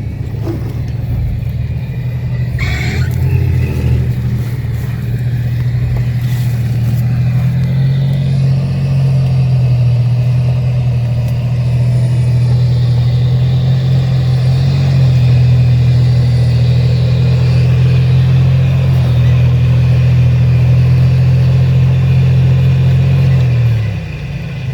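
Off-road 4x4's engine pulling under load while rock crawling. About a third of the way in the revs rise, hold steady, then drop off shortly before the end. A brief scraping noise about three seconds in.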